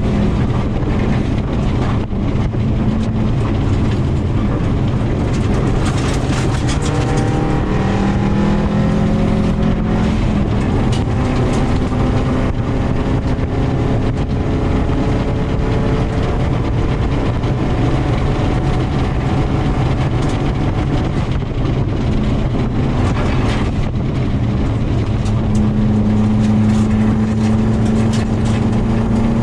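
Subaru WRX rally car at full effort on a gravel stage, heard from inside the cabin: its turbocharged flat-four engine note climbs and drops again and again through the gears. Sharp ticks of gravel hit the body over steady road noise.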